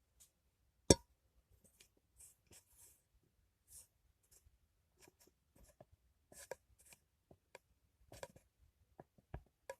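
Scattered faint taps, clicks and rustles, as of small objects being handled, with one sharp click about a second in.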